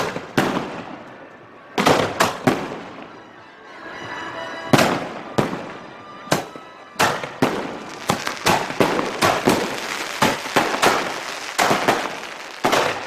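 Fireworks going off: loud sharp bangs and pops, a few heavy reports in the first seconds, then a quicker, denser run of bangs from about halfway in.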